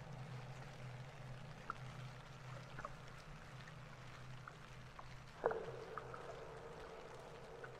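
Faint rainwater dripping and trickling on a wet street, single drips ticking here and there over a steady low hum. About five and a half seconds in comes a sharp knock, and a steady higher hum sets in after it.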